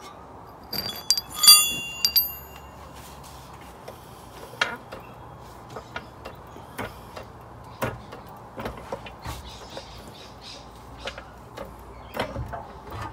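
Scattered metal clicks and knocks as a car differential is handled and worked into place, with one loud ringing metallic clang about a second and a half in.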